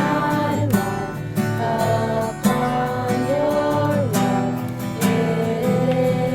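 Worship music led by a strummed acoustic guitar, with a sustained melody line gliding between held notes above it.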